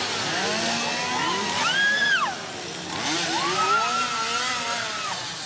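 Several two-stroke chainsaws revving together, their pitch rising, holding and dropping. There is one rev about two seconds in and a longer, overlapping set of revs from about three to five seconds.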